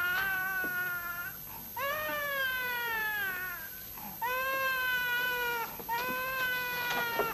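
Long drawn-out meowing, four calls in a row, each held for a second or more and mostly sliding down in pitch.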